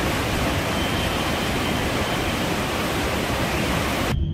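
Steady rushing roar of the Reuss river's waterfall in a rocky gorge. It is an even wash of water noise with no rhythm, and it cuts off sharply near the end.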